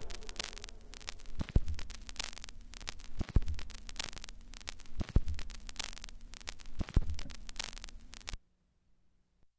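Low mains hum and static crackle from the DJ turntable-and-mixer setup once the music has faded out, with a soft thump about every two seconds. It cuts to silence near the end.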